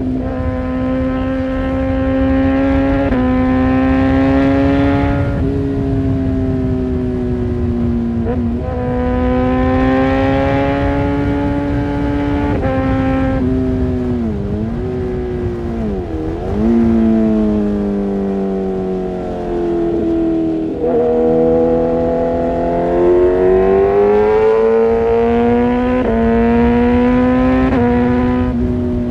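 Kawasaki ZX-6R inline-four engine through an Arrow Pro-Race exhaust, pulling under load. Its pitch climbs, then drops sharply at each gear change, several times over. About halfway through it slows, with two quick dips in pitch, then builds up again through the gears.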